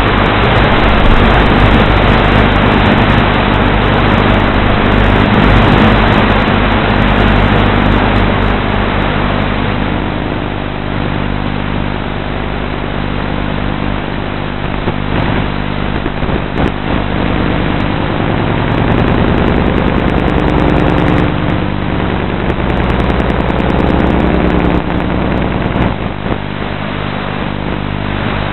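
450-size radio-controlled aircraft's electric motor drive and propellers running in flight, heard through the onboard camera's microphone with heavy wind rush. A steady hum whose pitch shifts as the throttle changes, louder in the first ten seconds.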